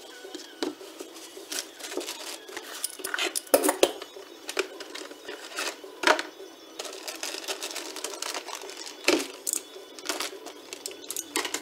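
Steel bearing parts and tools being handled on a workbench: a run of separate clinks and knocks, the loudest about three and a half, six and nine seconds in, with light rustling of packaging.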